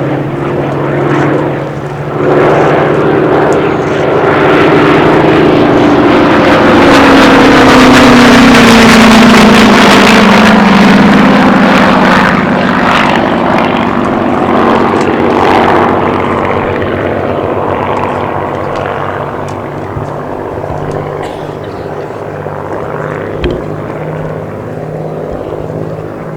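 A Second World War propeller fighter's piston engine making a pass: the engine drone swells to its loudest about a third of the way in, its pitch falling as the aircraft goes by, then fades as it flies away.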